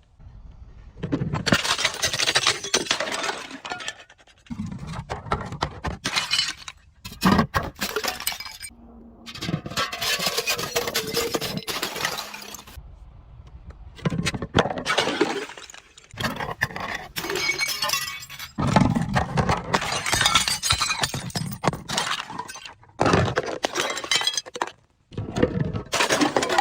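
Glass bottles and other brittle objects being crushed and shattered: crunching and cracking with glassy clinks, in a series of separate stretches a few seconds long that start and stop abruptly.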